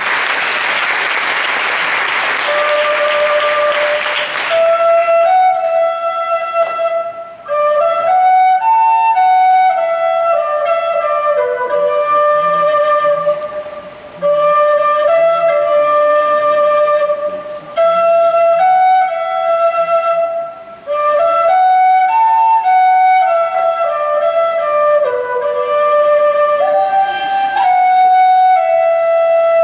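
Audience applause for about the first four seconds, then recorded music for a Polynesian dance begins: a slow flute melody of held notes stepping up and down.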